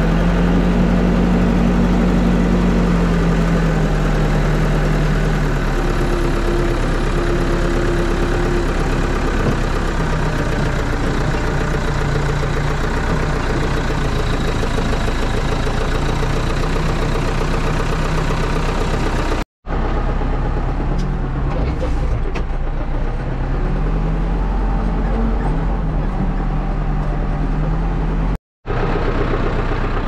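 New Holland HL95B backhoe loader's diesel engine running steadily while the machine drives, heard from the driver's seat with a heavy low drone. The sound is broken twice by a brief silence.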